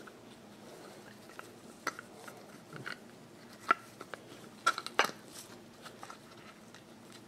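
Scattered small clicks and taps of a hair clipper's parts being handled and pried at to work an internal piece loose, several coming close together about five seconds in.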